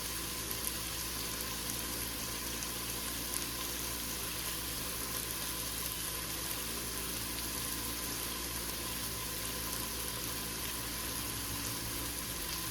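Chicken pieces and onions frying in a pan, a steady sizzle, with a faint constant hum underneath.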